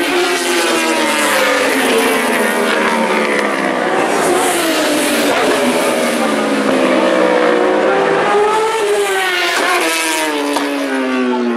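Several 1000cc four-stroke superbikes racing past one after another, their engine notes overlapping and sliding down in pitch as they brake and shift down for a corner, then rising again as they accelerate away.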